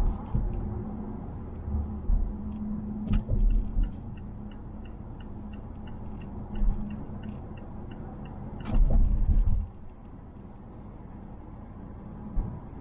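Cabin noise of a 2020 Mazda Atenza 2.5 L on the move: a steady low road and engine rumble. The turn-signal relay ticks about three times a second for several seconds from about three seconds in, and two short thumps come at about three and nine seconds in.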